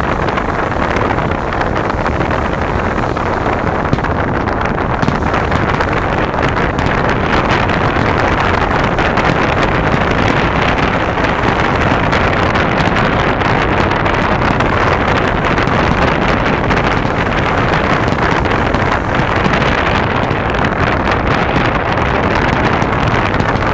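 Steady, loud rushing noise of wind on the microphone at the shore, with no distinct firework bangs standing out above it.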